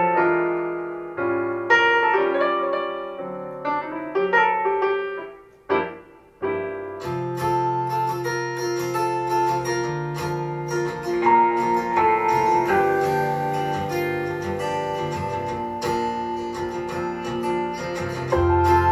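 Recorded music played back through a pair of JVC EX-P1 woodcone speakers and picked up by a microphone in the room. A piano plays alone at first, and about seven seconds in a fuller band comes in with bass and cymbals.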